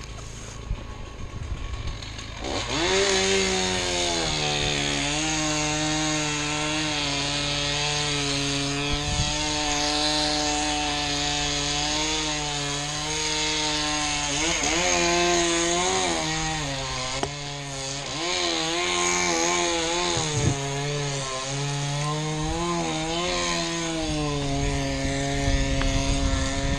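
Two-stroke chainsaw coming up to speed about two and a half seconds in, then running at high revs while cutting wood. Its pitch sags and recovers several times as the chain loads up in the cut.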